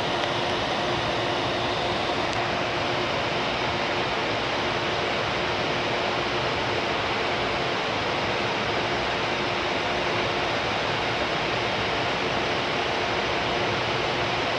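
Steady rushing hiss of a railway station platform, unchanging throughout, with a faint steady hum underneath.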